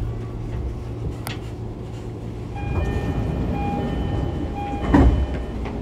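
E231 series electric commuter train, heard from inside a motor car, creeping to a stop. Under a steady low rumble there is a click about a second in. The brakes squeal with several steady high tones over the last moments of movement, then a thump about five seconds in as the train comes to rest.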